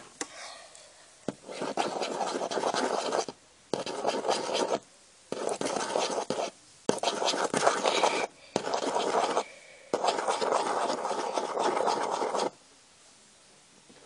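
Scratchy rubbing and scraping noise in bursts of one to three seconds with sudden stops between them, made by fingers moving over the recording phone right at its microphone.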